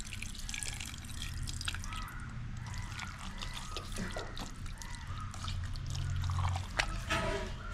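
Water poured into a pressure cooker of raw beef and masala at first, then a hand working through the wet meat, making small wet squelches and clicks.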